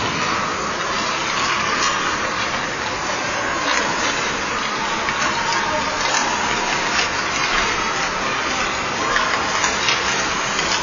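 Ice rink practice noise: a steady hiss of many skates scraping the ice, with a sharp clack of a stick or puck every second or two.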